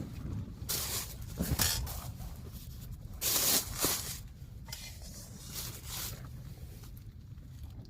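Tent fabric rustling in several short bursts, the loudest about three and a half seconds in, over a low steady rumble.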